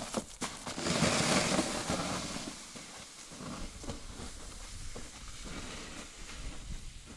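Footsteps crunching in snow and a plastic sled loaded with scrap metal sliding and scraping over the snow as it is dragged. The sound is loudest about one to two seconds in, then fades as it moves away.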